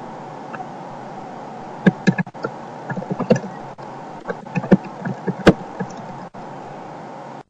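Steady hiss with a run of irregular sharp knocks and clicks between about two and six seconds in.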